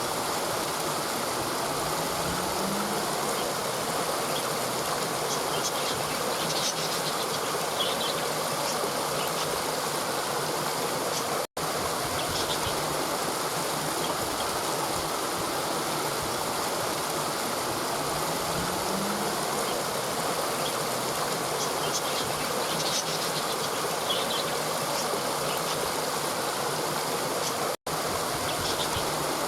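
Mountain river water flowing over rocks: a steady rushing of water that cuts out for an instant twice.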